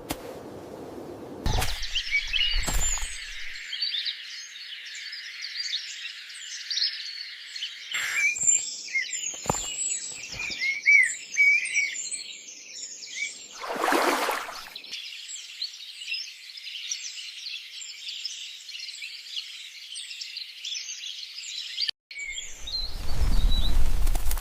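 A dense chorus of many small birds chirping and twittering, starting about a second and a half in and cutting off suddenly near the end. A brief rustle comes about midway, and low thumps follow at the close.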